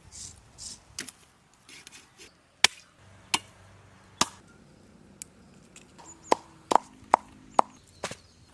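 A large knife chopping swordfish into steaks on a wooden tree stump: about eight sharp single chops, three spaced well apart, then a quicker run of five near the end.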